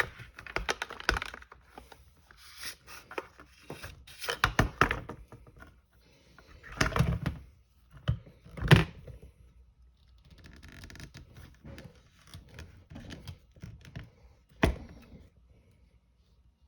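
A large knife working a piece of wood: a series of irregular knocks and cracks with short scraping cuts in between, the loudest knocks about halfway through and again near the end.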